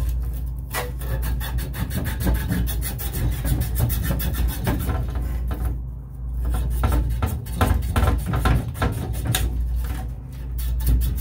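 Copper refrigerant tubing at a freezer evaporator's thermostatic expansion valve being sanded clean by hand, in fast back-and-forth rubbing strokes, as preparation for brazing. The strokes come in three spells, with brief pauses about half a second in, around six seconds in and around ten seconds in, over a steady low hum.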